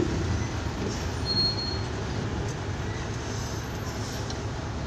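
Container truck's diesel engine idling with a steady low rumble, heard from inside the cab, over the noise of surrounding street traffic. A brief high-pitched tone sounds about a second and a half in.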